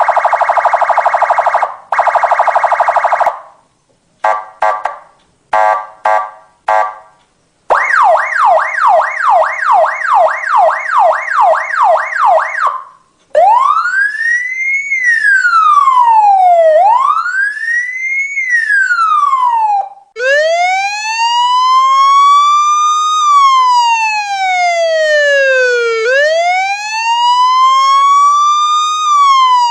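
Police car siren running through its tones: a steady buzzing horn tone, a few short blasts, a fast yelp of quick rising sweeps about two and a half a second, then a wail rising and falling, first every three and a half seconds or so and then slower and lower, about every six seconds.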